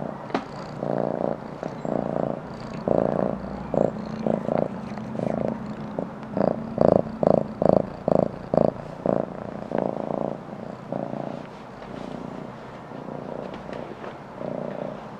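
Domestic cat purring, a continuous rumble that comes in pulses, loudest and quickest in the middle at about three a second.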